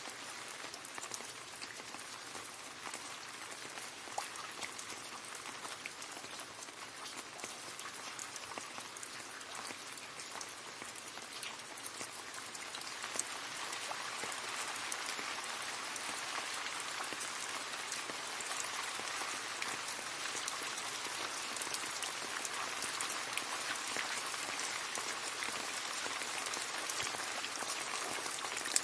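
Steady rain falling into a puddle, many small drops splashing and pattering on water, growing a little heavier about halfway through.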